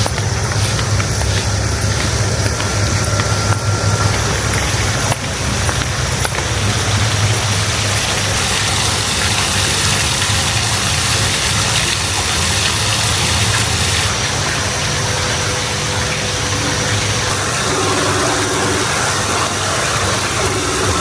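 A motor vehicle's engine running steadily under a loud, even rushing noise, with a low hum throughout.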